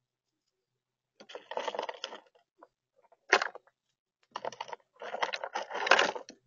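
Grey squirrel rummaging through a tub of in-shell nuts close to the microphone: irregular bursts of clattering and rustling as the nuts knock together, with a single sharp click about three seconds in.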